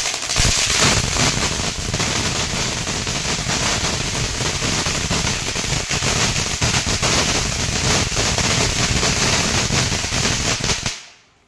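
MORI Chilled Mojito tin fountain firework spraying sparks: a steady loud hiss dense with fine crackling, with no bang, as a fountain does not burst. It dies away near the end.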